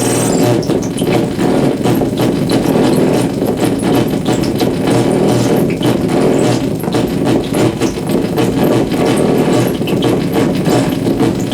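Amplified electrical interference from dimmed compact fluorescent bulbs, picked up by exposed guitar cables near their flickering coils: a dense, loud buzz full of rapid crackling pulses over a steady low hum. The sound comes from the bulbs malfunctioning because they cannot properly dim.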